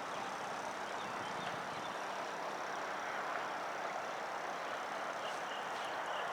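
Steady, even hiss of distant road traffic, with a few faint high ticks.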